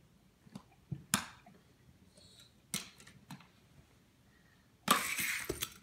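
A few sharp clicks and knocks of small plastic and die-cast toy cars and track pieces being handled, the strongest a little over a second in, then about a second of louder scraping and rattling near the end.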